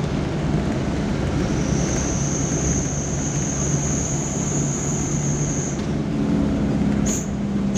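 A vehicle on the move: engine running under steady road noise, with a steady high whine through the middle and a few sharp ticks near the end.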